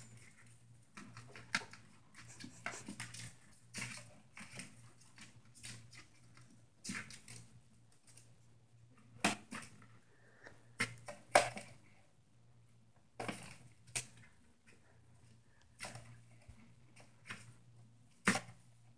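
A conure rummaging and chewing in a cardboard cereal box: irregular crinkling, scratching and clicking taps of beak and claws on the cardboard, with a few sharper cracks around halfway and near the end.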